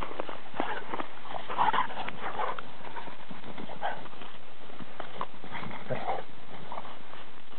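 Two dogs play-fighting, with short growls and yips now and then, loudest about a second and a half to two and a half seconds in.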